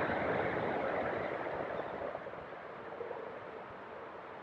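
Road traffic noise from a highway overpass, a steady rush loudest at first and fading over the first few seconds.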